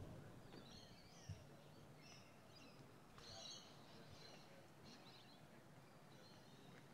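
Faint birds chirping intermittently over quiet outdoor background noise, with a soft low thump a little over a second in.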